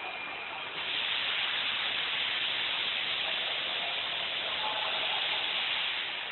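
A steady hiss of air from the automatic PVC car mat making machine. It comes on about a second in and cuts off near the end, over fainter machine noise.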